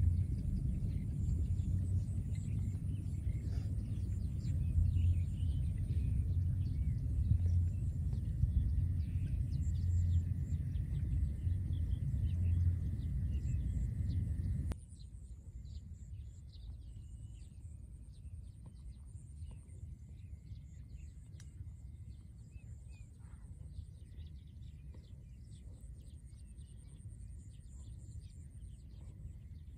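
Wind buffeting the microphone in open country: a low, uneven rumble. About halfway through it cuts off suddenly, leaving a quieter field background of faint high chirps and ticks over a thin steady high buzz.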